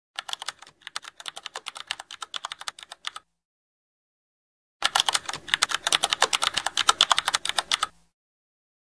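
Rapid keyboard typing clicks in two runs of about three seconds each, separated by a silent gap; the second run is louder.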